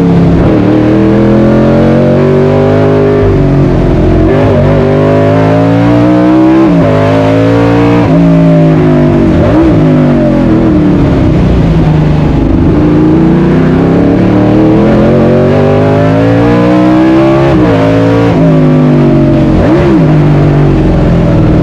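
Fuel-injected 5.0-litre Chevrolet 302 V8 at full race pace, heard from inside the cabin where the engine sits. It revs up hard again and again, with a sharp drop in pitch at each gear change, and stretches where the revs fall away as the driver lifts off.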